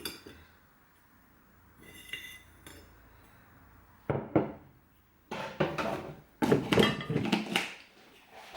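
A spoon clinks against a cup as kitchenware is handled while a cereal-coffee drink is made. It starts quiet, with a light ringing clink, then gives sharper knocks and a busy run of clinks and clatter near the end.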